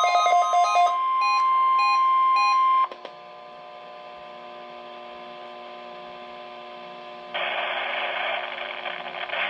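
The NOAA Weather Radio 1050 Hz warning alarm tone, a single steady tone with faint repeated beeps alongside, held for about two seconds before cutting off suddenly. It is preceded briefly by the tail of a warbling multi-tone alert and followed by quiet radio dead air with a faint hum. About three-quarters of the way through, a steady hiss comes in.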